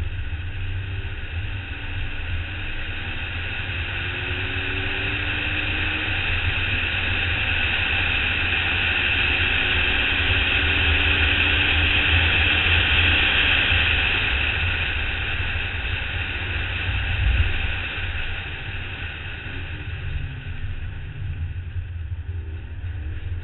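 Wind rushing and buffeting over a car-mounted action camera at track speed. The BMW 135i's turbocharged straight-six can be heard faintly underneath, its pitch climbing several times as it pulls through the gears. A single sharp jolt comes about 17 seconds in.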